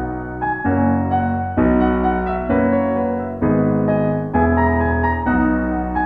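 Background music: a piano playing sustained chords, with a new chord struck about every second and dying away between strikes.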